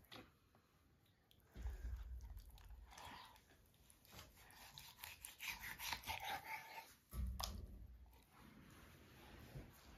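Kitchen knife cutting up a raw whole chicken on a wooden board: crunching and tearing as the blade works through skin and joints, with two low thuds, about a second and a half in and again about seven seconds in.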